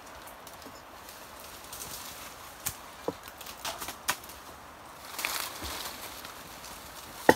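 Quiet forest background with a few scattered sharp knocks and clicks and a brief rustle about five seconds in. The last knock, near the end, is the loudest.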